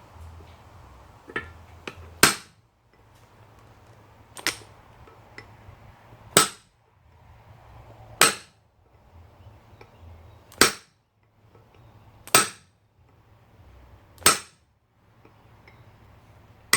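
Hammer blows on an anvil, forging the copper head of an antique soldering iron: single heavy strikes about every two seconds, eight in all, with a couple of lighter taps just before the first.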